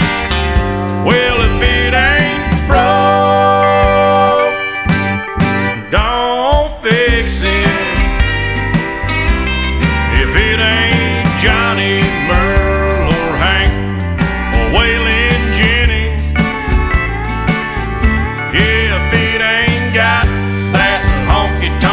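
Country music instrumental break: guitars with sliding, bending notes over a steady drum beat.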